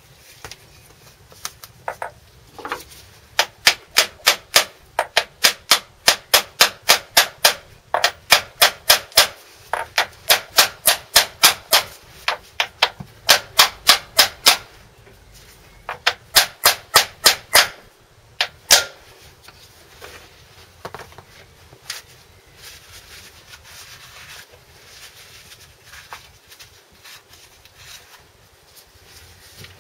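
Hammer tapping a frozen spigot bush into the end of a Land Rover Series 3 crankshaft through a metal tube drift: quick, sharp strikes at about three a second, in a long run and then a shorter one, followed by a single blow.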